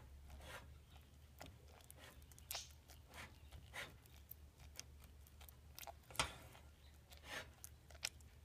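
Faint, irregular scrapes and taps of a utensil in a metal pot as softened soap pieces are mashed down to help them melt, over a low steady hum.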